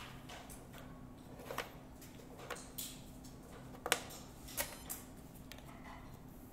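Plastic Othello discs clicking against the board and each other as a disc is played and several are flipped over by hand: a handful of sharp, separate clicks, the loudest about four seconds in. A digital game clock's button is pressed to end the move, under a low steady hum.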